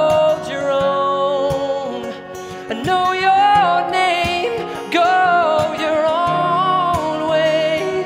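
A song without sung words: a held, wavering melody line over steady chords, with frequent sharp strummed or struck accents.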